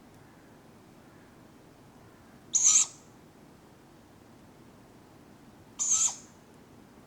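Tawny owlets giving two short, hissing begging calls for food, about three seconds apart.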